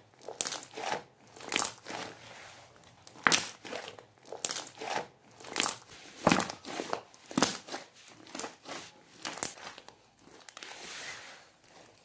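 Hands kneading and squeezing a glittery slime: irregular sticky pops and crackles as air pockets in the slime burst, one or two a second.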